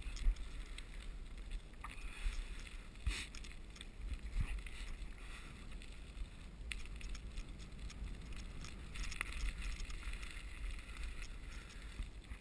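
Steady low wind rumble on an action-camera microphone over the rolling noise of a dog-pulled rig's tyres on cracked asphalt, with a few light clicks and rattles scattered through.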